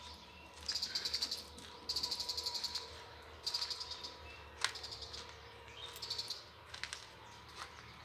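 High, rapid trilled chirping in four short bursts, each under a second, over a faint steady hum, with one sharp click about halfway through.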